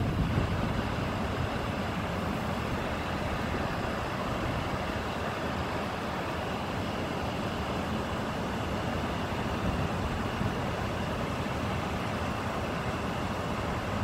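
Steady outdoor background noise: a constant, even rushing hum with no distinct events, the kind of roar that distant road traffic makes.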